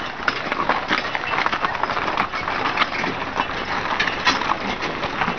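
A horse-drawn wagon rattling along behind its team of horses: a dense, irregular clatter of wood and clinking trace chains.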